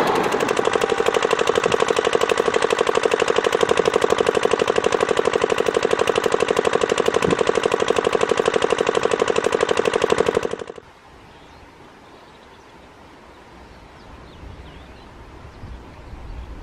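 Passenger train coaches passing close by at speed, their wheels making a loud, fast, even rattle on the rails. The sound cuts off abruptly about ten seconds in, leaving quiet open-air background with a faint low rumble near the end.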